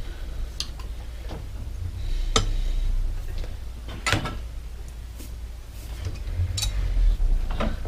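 Scattered sharp metal clicks and clinks as pliers work the screw ring of a Sturmey-Archer three-speed hub shut. There are about half a dozen clicks a second or so apart, the loudest two to four seconds in.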